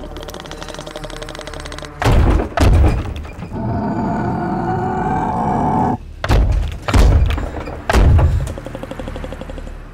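Tense film score: a fast pulsing texture broken by heavy booming hits, two about two seconds in and three more from about six seconds on, with held high notes between them.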